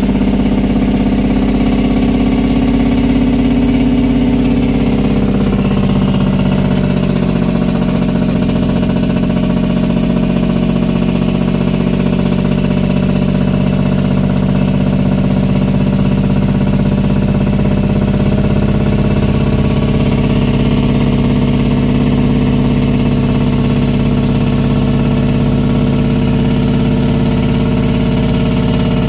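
Peterbilt semi truck's diesel engine running steadily, hauling a load of about 117,000 lb. Its pitch eases down about five to eight seconds in, then holds.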